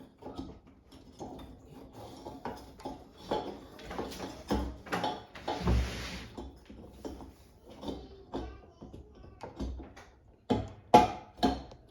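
Irregular clicks and knocks of tools and parts being handled, with a short hiss about six seconds in and three sharp, loud knocks near the end.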